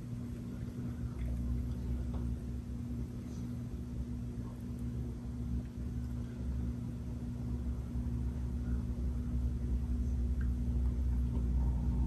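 A 44-inch Hampton Bay Wellston ceiling fan running: a steady motor hum with a deeper rumble that comes in about a second in and slowly grows louder.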